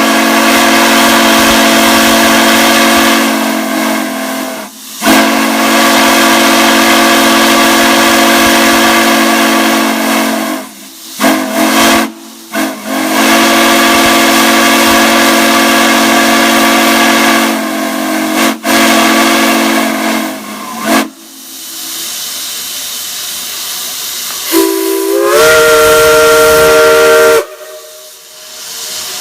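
Multi-chime steam whistles blown in long blasts over a steam hiss, each blast a steady chord of several tones, with a couple of short toots between. After a stretch of plain hiss, another whistle sounds near the end, its chord sliding up in pitch as the valve opens.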